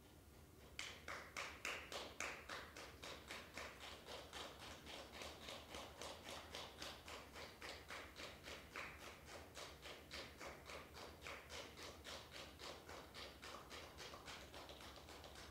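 A steady rhythm of sharp clicks or taps, roughly three to four a second, starting about a second in, the first few a little louder.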